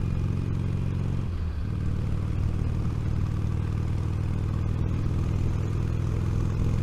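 Steady wind rumble and motorcycle engine noise picked up by a microphone inside a motorcycle helmet at about 50 mph, as the bike speeds up toward 60. The low rumble is loudest.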